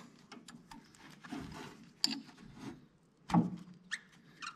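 Scattered light clinks and knocks of a hand wrench being fitted and worked on the water pump bolts of a White 2-70 tractor, with a louder knock about three seconds in.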